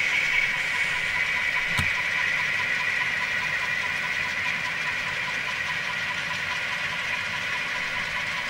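Diesel engine sound from an N scale Canadian Pacific model train's locomotives as the train pulls past, running steadily under a constant high whine. One sharp click comes a little under two seconds in.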